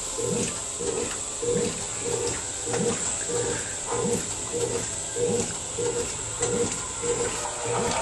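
Washing machine agitating in a steady rhythm, a churning pulse about every 0.6 s over the motor's hum.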